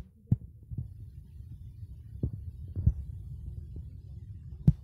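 Scattered soft thumps and knocks over a steady low rumble, with one sharp, loud knock near the end.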